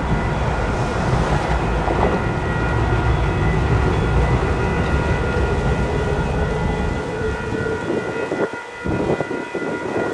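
Grade-crossing warning bells, including a Safetran Type 1 electronic bell, ringing with steady overlapping tones as the crossing activates. Underneath, a heavy low rumble fades out about seven and a half seconds in.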